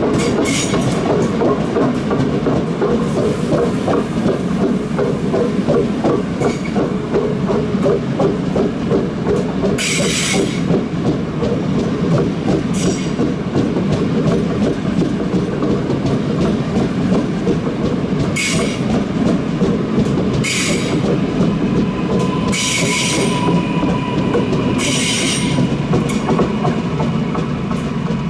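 Trains rolling slowly over station tracks and points: first an SBB double-deck train, then a Stadler Giruno (RABe 501) high-speed train, with a steady loud rumble of wheels on rail. Several short high hisses come through, and a thin steady whine joins near the end.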